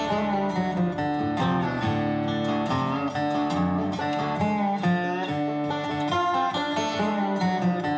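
Background music: acoustic guitar strumming and picking, in a country style.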